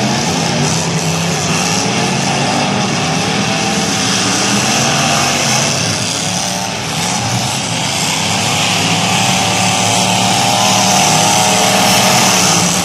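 Several old race cars' engines running hard at once, a loud continuous din whose pitch wavers up and down as they rev and back off.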